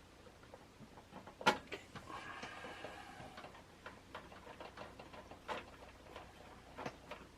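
Scattered small clicks and taps of a magnetic screwdriver and motherboard screw against the board's standoffs and the steel PC case, with one sharper click about a second and a half in.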